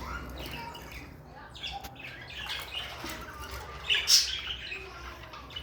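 Several budgerigars chattering with short, overlapping chirps, with a loud squawk about four seconds in.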